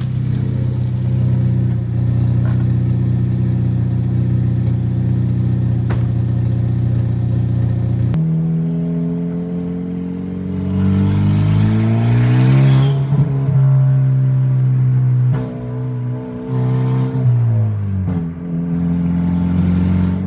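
Hyundai Veloster N's turbocharged four-cylinder engine running at a steady pitch under way. After an abrupt cut it accelerates, its pitch rising for a few seconds, then holds and lets off briefly twice near the end.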